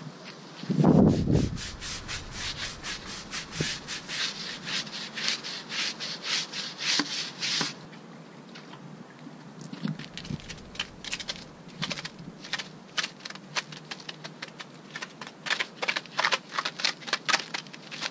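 Stiff-bristled brush scrubbing a rubber tire sidewall coated in wheel and tire cleaner, in quick back-and-forth strokes of about three to four a second, pausing for a couple of seconds in the middle. A short low rumble about a second in is the loudest sound.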